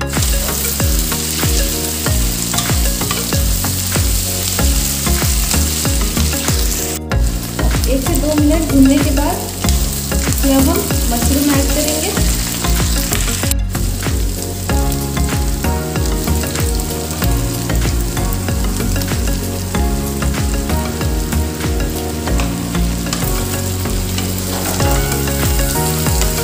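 Sliced onions sizzling steadily in hot oil in an iron kadhai while being stirred with a wooden spatula. The sizzle cuts out briefly twice, about a third and halfway through.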